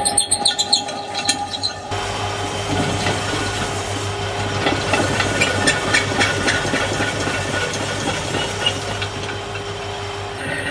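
Electric workshop machine running with a steady hum and hiss, with a patter of small scraping clicks through the middle of the stretch. The sound changes abruptly about two seconds in.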